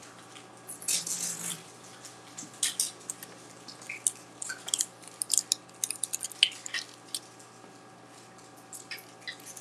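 Light scattered clicks, taps and soft rustles of communion bread, plates and small cups being handled on a table, with a brief rustle about a second in.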